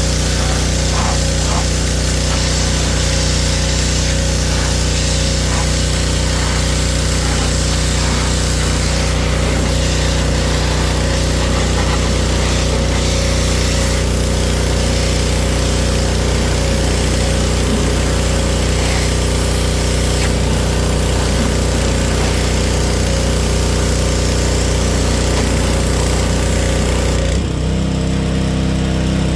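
A motor-driven machine running steadily and loudly, with a low even hum and a hiss over it. About 27 seconds in, its sound changes: the hiss falls away and the low hum shifts in pitch.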